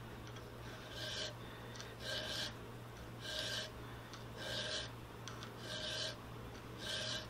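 Round hand file cutting a notch into a steel rifle barrel: six short raspy strokes about a second apart, with the file lifted between strokes. A faint steady low hum runs underneath.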